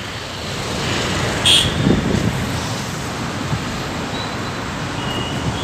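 Road traffic noise: vehicles passing steadily on a busy road, with one passing louder about two seconds in and a short high blip just before it.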